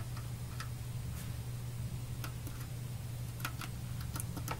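Faint, irregular clicks of the small tactile push buttons on an Oberheim Perf/X Drummer board being pressed several times to select presets, over a steady low hum.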